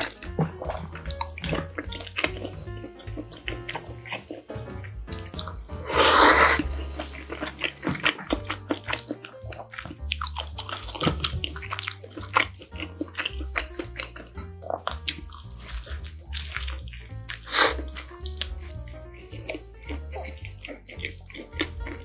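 Close-miked wet eating sounds of spaghetti: a loud slurp of noodles about six seconds in, a shorter one a little past the middle, and constant wet chewing and lip smacks between, over background music.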